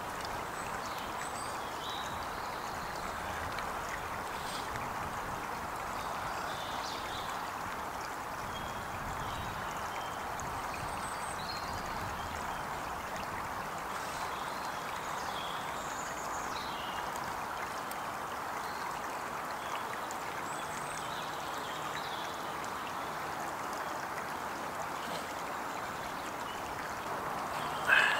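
Woodland stream running steadily, with scattered faint high chirps over it and a short sharp clatter at the very end.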